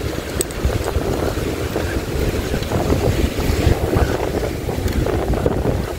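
Wind buffeting the microphone aboard a fishing boat at sea: a steady, gusty rumble with the wash of sea water around the hull.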